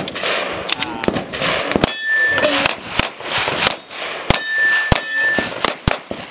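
A string of handgun shots at irregular intervals, several followed by the brief clear ring of a steel target being hit.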